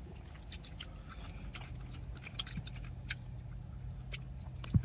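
People chewing sugar-coated gummy sweets: soft, irregular mouth clicks and smacks over a low, steady hum.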